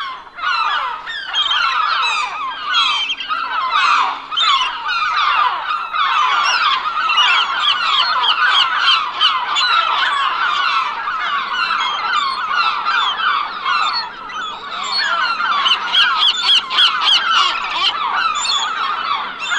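A flock of seagulls calling, many short calls overlapping into a dense, continuous chorus.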